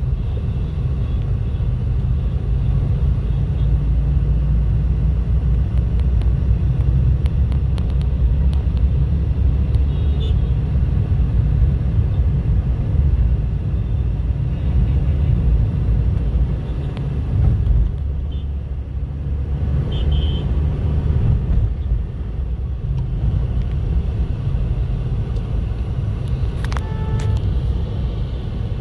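Steady low rumble of road traffic or a car driving, with a brief pitched tone, like a horn, near the end.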